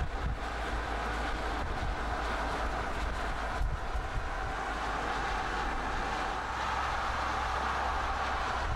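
Car driving at steady speed on a paved road: a continuous rumble of tyre and road noise mixed with wind noise.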